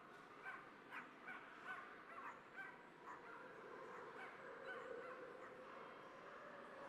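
Faint, rapid high-pitched yapping of a small dog, about three short yaps a second, stopping about three seconds in.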